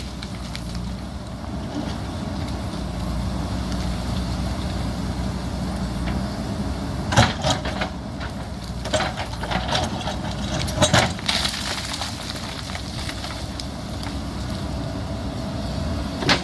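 JCB backhoe loader's diesel engine running steadily. Several sharp knocks and clanks, about seven to eleven seconds in and once near the end, as the machine works against rock.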